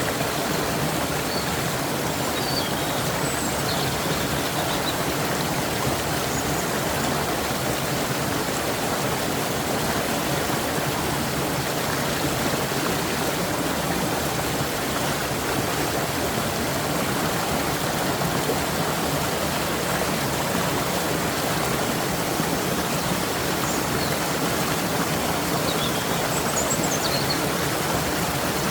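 Stream water rushing steadily, with a few faint high chirps about three seconds in and again near the end.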